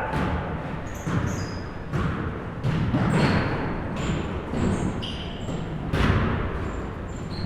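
A basketball bouncing on a gym floor, with a few irregular thuds, mixed with short high-pitched squeaks of sneakers on the court.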